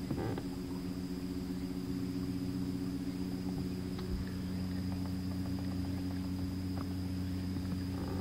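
Bow-mounted electric trolling motor humming steadily as it pushes the small fishing boat along, with a light knock about four seconds in.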